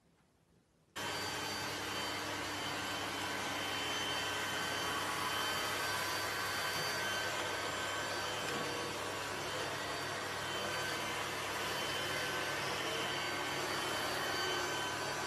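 Robot vacuum cleaner running: a steady whirring noise with several steady whining tones, starting suddenly about a second in.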